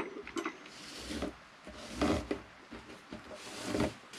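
Braided Dyneema line rubbing and rustling against the wooden tabletop and itself as hands handle it, in three short bursts: about a second in, at two seconds, and near the end.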